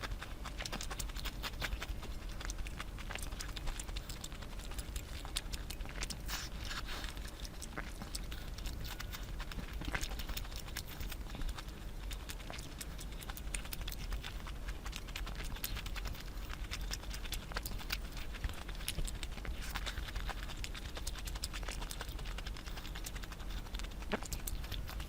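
Close-miked eating sounds of a person chewing curry: a steady stream of small irregular clicks and smacks from the mouth.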